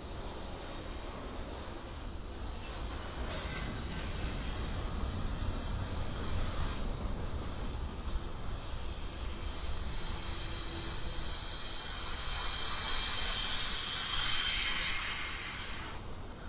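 Freight train cars rolling past on steel wheels, a steady rumble with a thin, high-pitched wheel squeal held over it. The squeal and hiss build to their loudest about three-quarters of the way through, then fall away near the end.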